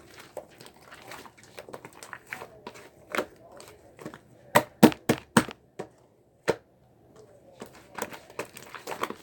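Slime being squeezed and poked by hand: a run of small sticky clicks and crackles, with four loud snapping pops about halfway through and one more a second later.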